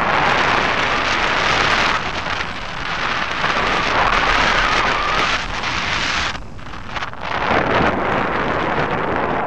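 Wind rushing over a hang glider in flight, buffeting the microphone of a wing-mounted camera; it surges and eases, dropping away briefly twice about six and seven seconds in.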